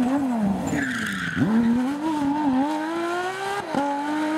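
Porsche 911 GT3 rally car's flat-six engine passing at speed. The revs fall as it lifts off, with a short squeal about a second in. It then picks up sharply and climbs through the revs, with a quick upshift near the end.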